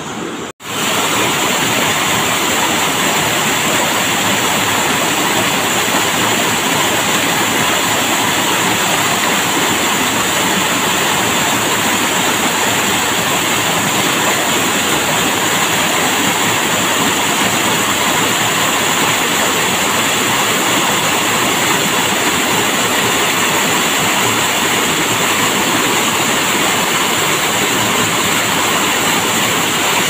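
Small waterfall pouring between boulders into a plunge pool: a loud, steady rush of splashing water. It drops out for a moment just after the start, then runs on unchanged.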